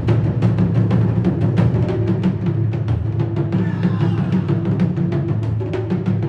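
A Japanese drum ensemble playing a fast, steady rhythm of sharp strikes over a deep booming low end.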